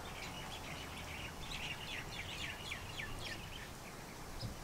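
A bird chirping faintly: a quick run of short, high, falling notes that stops about a second before the end, over a low room hum.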